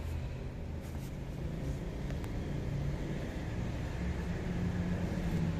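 Steady low background rumble, with a couple of faint light clicks about one and two seconds in.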